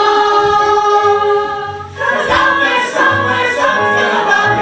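Stage musical song: voices singing with accompaniment. A chord is held, breaks off about two seconds in, and then the next phrase starts with a bass line under it.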